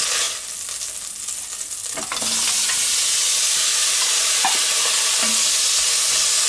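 Hot fat frying in an enamelled cast-iron Dutch oven. The sizzling is quieter for the first two seconds, then rises sharply as porcini mushrooms are tipped into the pot and stays loud. A utensil scrapes and stirs in the pot a few times.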